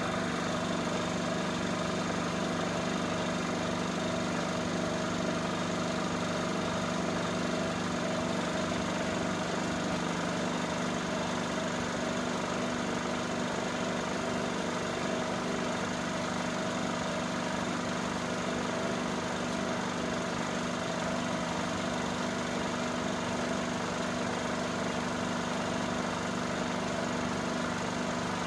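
Cine film projector running: a steady mechanical hum and whirr of its motor and fan, unchanging throughout.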